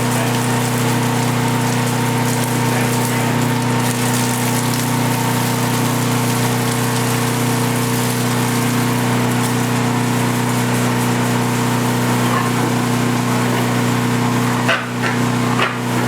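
A motor running steadily with a constant hum and hiss, dipping briefly twice near the end.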